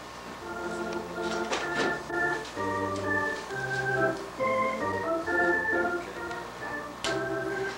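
Organ playing slow, sustained chords that change every half second or so over low bass notes, starting about half a second in.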